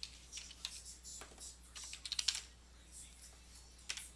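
Typing on a computer keyboard: irregular key clicks, with a quick run of keystrokes about two seconds in.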